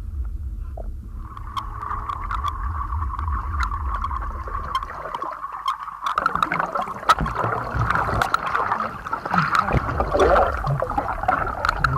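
Muffled underwater sound of water churning and bubbling around a submerged person, over a low rumble and with scattered small clicks. It grows more turbulent about halfway through.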